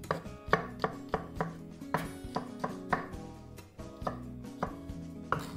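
A chef's knife chopping garlic cloves on a wooden cutting board: quick, sharp strokes about three a second, thinning to a few single chops in the second half.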